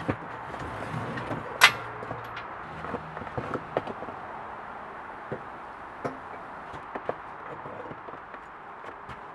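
Metal clanks and knocks from a folding steel engine hoist being unfolded and set up on plywood, with one sharp clank about a second and a half in and lighter knocks and clicks scattered after it, over a steady background hiss.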